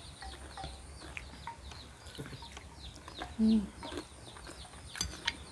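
Chickens: a steady stream of short, falling peeps throughout, with one louder, lower call about three and a half seconds in.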